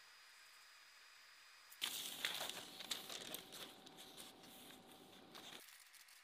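Sheets of paper rustling and crinkling as they are picked up and handled, starting about two seconds in and stopping abruptly after about four seconds.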